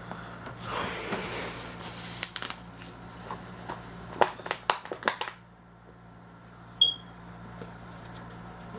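Plastic miniature packaging being crinkled and torn open, then a run of sharp plastic clicks and snaps as the pieces are handled. A brief high chirp sounds about seven seconds in.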